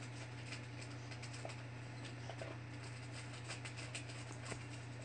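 Quiet background: a low steady hum with a few faint, scattered clicks.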